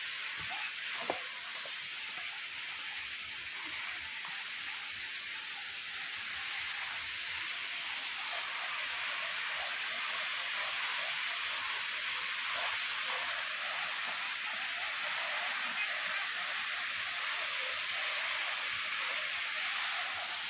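Steady rush of falling water from a waterfall, a little louder after about six seconds.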